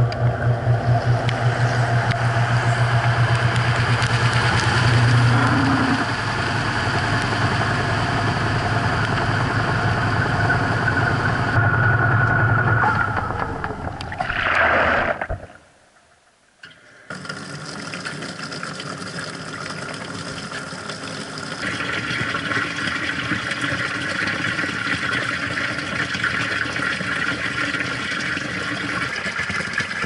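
Top-loading washing machine heard from inside its tub: the drive motor hums steadily, winds down and stops for a second or two about halfway through, then water pours into the tub with a steady hiss that grows brighter a few seconds later.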